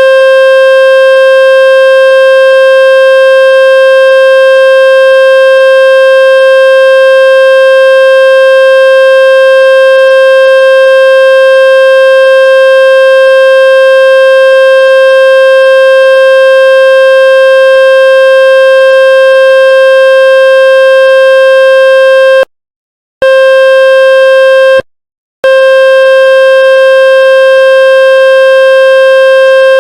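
Loud steady buzzing electronic tone of about 500 Hz with many overtones, a water-ejection tone played to vibrate water out of a wet speaker. It cuts out twice for under a second near the end.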